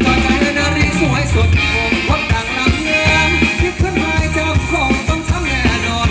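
Live Thai ramwong dance band playing loud dance music, with a steady drum beat and a sung vocal line over it.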